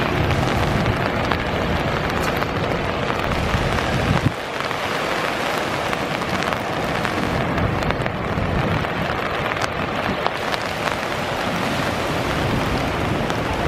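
Steady rushing roar of floodwater pouring through the Mactaquac Dam's open spillway gates, mixed with heavy rain. A deep rumble underneath eases off about four seconds in.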